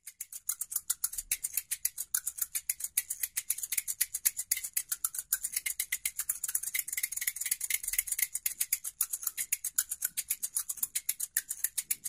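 A pair of small hand-held shakers shaken in a fast, even rhythm, each stroke a crisp, high rattling hiss.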